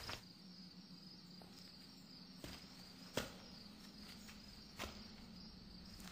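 Faint night ambience of crickets chirping steadily, with a few sharp footfalls, the loudest about three seconds in.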